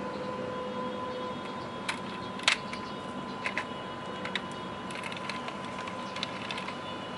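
Light clicks and taps from a diecast model car being handled and set down, the loudest about two and a half seconds in, over a steady low hum with a faint held tone.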